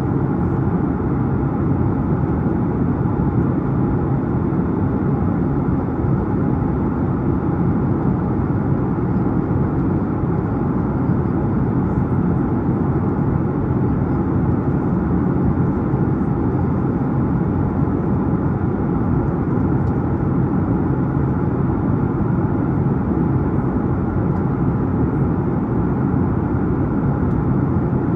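Steady, unchanging cabin roar of a Boeing 737-9 MAX in flight: noise from its CFM LEAP-1B turbofan engines and rushing airflow, mostly a low rumble.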